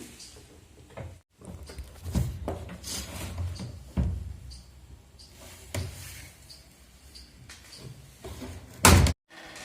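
A series of irregular knocks and clunks, as of hard parts and tools being handled, with a sharp, loud knock near the end.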